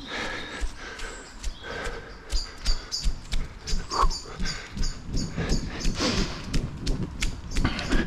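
A dog panting rhythmically, about three breaths a second, with footsteps crunching on a leafy path.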